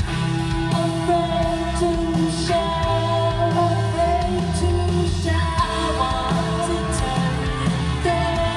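Live rock band playing loud, with a voice singing over electric guitar and a heavy bass line.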